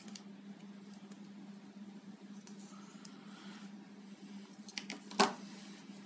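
Wooden toothpick scraping and picking lint out of the gaps between the scales and tools of a Victorinox Picknicker pocket knife: faint scratching and small ticks over a steady low hum. About five seconds in, a few light clicks and then one sharp knock as the knife is set down on the work surface.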